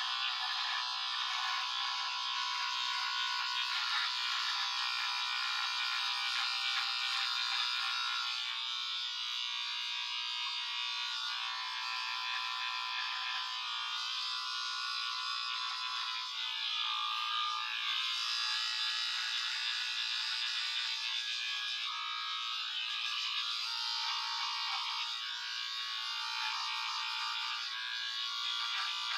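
Battery-powered electric beard trimmer running steadily while clipping neck hair, a continuous buzz that shifts a little as it works; the owner puts its sound down to weak batteries.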